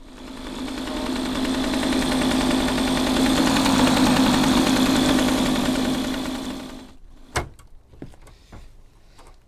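Small engine running steadily at a constant speed, fading in over the first couple of seconds and fading out about seven seconds in. A few sharp clicks and knocks follow near the end.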